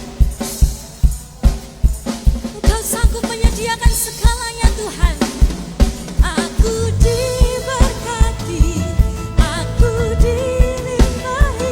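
Church worship band playing an upbeat praise song with singing over a steady drum beat of about two kicks a second; the bass grows fuller about seven seconds in.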